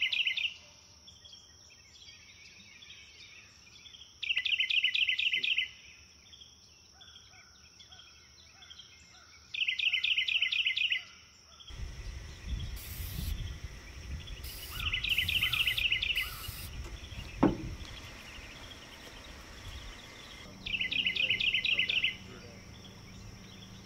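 Outdoor wildlife ambience: a steady high-pitched insect drone with a short pulsed chirping call, about a second long, that repeats five times, every five or six seconds. A single sharp click comes about two-thirds of the way through.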